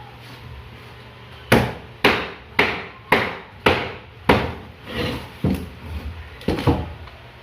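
Hammer blows knocking apart a broken cabinet: about a dozen sharp strikes, roughly two a second, beginning about a second and a half in.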